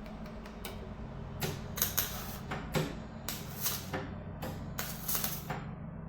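MIG welder tacking car body steel: about six short crackling bursts of arc, each under a second, over a steady low hum.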